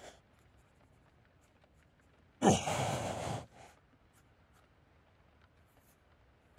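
A man's heavy sigh lasting about a second, a couple of seconds in, with near silence around it.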